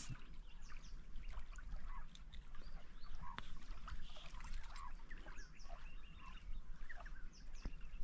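Birds calling: many short chirps and whistles scattered throughout, some gliding in pitch, over a low steady rumble.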